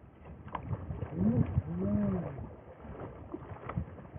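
A man's wordless, drawn-out vocal exclamation that rises and then falls in pitch, about a second in. Scattered knocks and handling noises come from a small boat while a salmon is fought alongside and netted.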